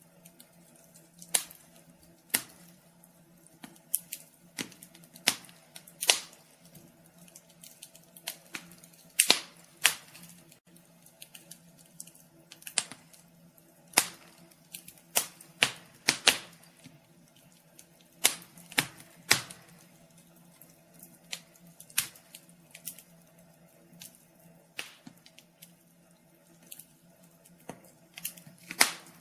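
Wood fire crackling and popping in a fireplace: sharp, irregular pops about one or two a second, some louder snaps among them, over a faint steady low hum.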